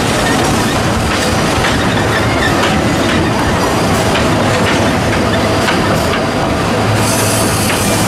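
Passenger train of open cars behind a steam locomotive rolling along the track, a steady rumble with wheels clicking over the rail joints and light wheel squeal on the curve. A hiss comes in about a second before the end.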